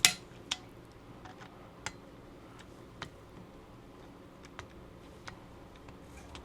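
Small metal screwdriver bits being picked from a bit set and swapped in a driver, making sharp clicks and taps. The first click is the loudest, and about six lighter ones follow at uneven intervals.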